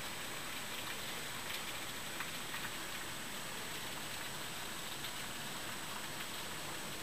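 Heavy cloudburst rain falling steadily on a waterlogged lawn and a flooded street: an even hiss with a few faint drop ticks.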